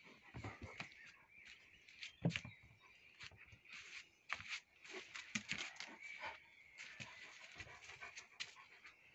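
A large dog panting, with scattered rustles and knocks; the loudest is a sharp thump about two seconds in.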